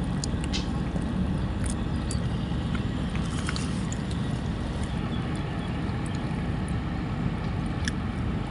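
A steady low rumble, like a motor running at a distance, with a few faint light clicks.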